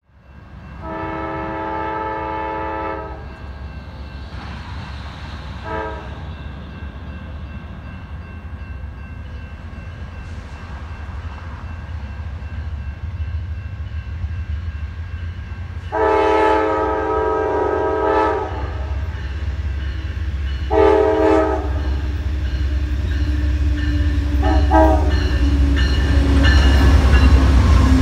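Amtrak diesel passenger locomotive sounding its multi-note air horn as it approaches: a long blast, a short one, then after a gap a long blast and two short ones. Under the horn, the deep rumble of the locomotives and the train on the rails grows steadily louder as it nears and reaches the platform.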